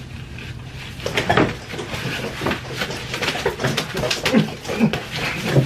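Two people play-fighting at a table: a run of slaps, knocks and scuffling from about a second in, mixed with short grunting vocal sounds.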